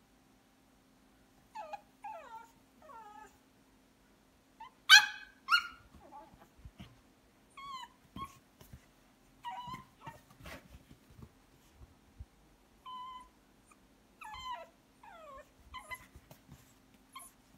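Pug puppy whining and yelping in many short cries that fall in pitch, the loudest about five seconds in. It is protesting at being shut in its pen.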